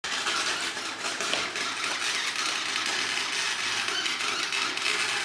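Electric arc welding on the open rear differential, the steady crackle and sizzle of the arc as the gears are welded together to lock the diff.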